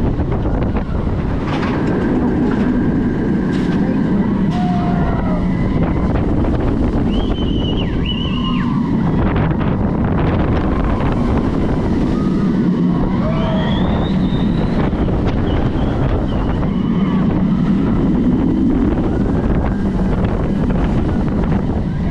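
Wind rushing over an action camera's microphone with the steady rumble of the Mako steel hyper coaster's train running at speed along its track. A few brief high-pitched glides sound over the rush.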